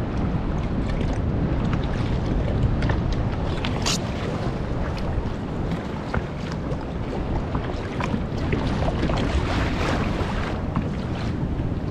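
Wind buffeting the microphone over sea water splashing and slapping against a plastic kayak's hull in a choppy sea, with many small splashes scattered throughout.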